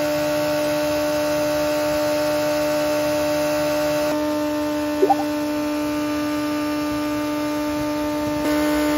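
Honda CBR600RR inline-four engine held steady at about 9000 rpm, run under load on a chassis dynamometer as part of breaking in a freshly built race engine. A short chirp cuts in about five seconds in.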